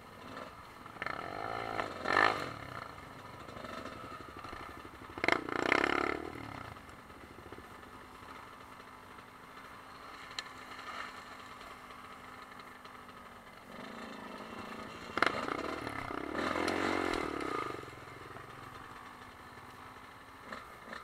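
Trail motorcycles picking their way over rough ground, their engines revving up in short bursts with sharp knocks and clatter, between stretches of low, steady running. The bursts come about a second in, around five to six seconds in, and from about fifteen to eighteen seconds in.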